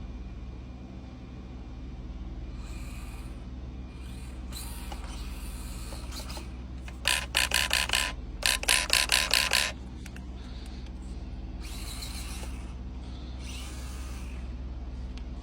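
Axial SCX24 micro crawler's small electric motor and gearbox whirring in short bursts as the throttle is worked. A quick run of pulsing blips comes in the middle, the loudest part.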